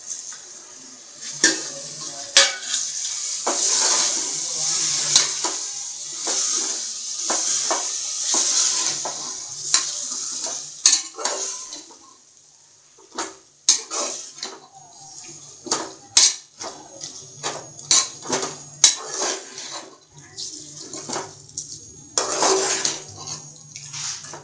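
Steel ladle stirring and scraping chicken masala in an aluminium pressure cooker, with repeated metal-on-metal clinks and knocks. There is a sizzling hiss through the first half as coriander and mint are stirred into the hot pot, and a steel plate used as a lid clatters near the start.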